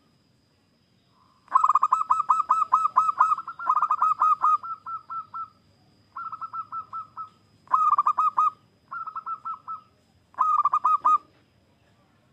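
Zebra dove (perkutut) cooing: quick runs of repeated rolling notes, in about six bouts with short pauses between, some louder than others. A faint steady high tone runs underneath.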